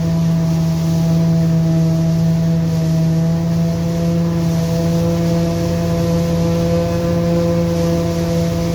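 Corn-harvesting farm machinery running at a steady working speed while chopping maize: a constant droning hum with one strong low tone and several fainter higher tones above it.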